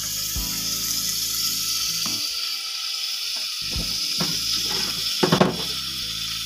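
Spiced shawarma meat sizzling steadily as it fries in a pan over a gas burner. A few sharp knocks come through it, loudest in a short cluster a little after five seconds in.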